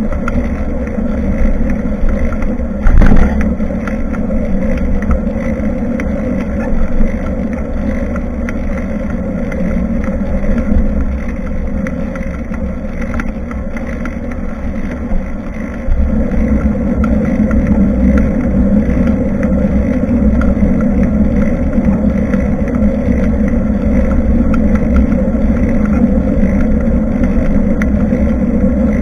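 Steady rumble of a bicycle ride heard through a bike-mounted action camera: tyre, road and wind noise. There is a short thump about three seconds in, and the rumble gets louder about halfway through.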